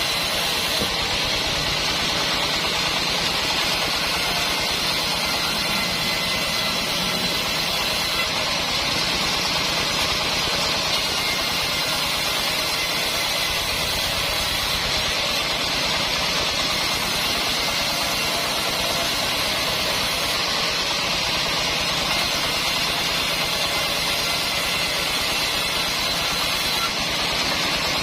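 Band sawmill running, a loud continuous mechanical noise with a hiss and a faint steady whine, unchanged throughout.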